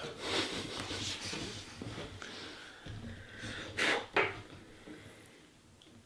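A wipe rubbed hard back and forth over a graphics card's GPU die, scrubbing off old, caked-on thermal paste, with a brief louder burst about four seconds in.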